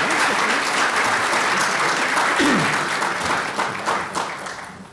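Audience applauding, tapering off in the last second.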